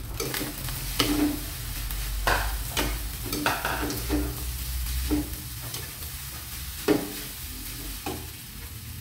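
Rice being stir-fried in a steel wok: a spatula scrapes and knocks against the pan at irregular strokes, over a steady sizzle.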